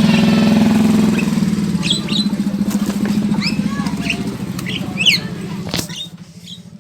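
Caged birds giving short, sharp, high chirps, one after another, over a steady low engine-like hum that is loudest at the start and fades after about a second.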